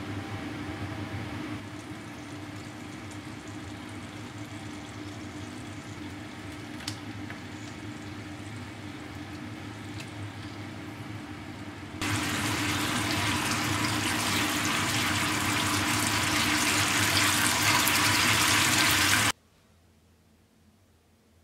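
Pan juices and sauce sizzling in a hot black iron frying pan, softly at first under a steady hum with a few light clicks of a metal measuring spoon. About twelve seconds in it jumps to a much louder, busier sizzle as ketchup and sauce bubble in the pan, then cuts off abruptly to near silence near the end.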